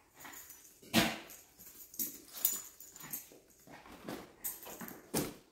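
A Pomeranian dog whimpering softly, with scattered knocks and rustles of things being handled; the loudest is a thump about a second in.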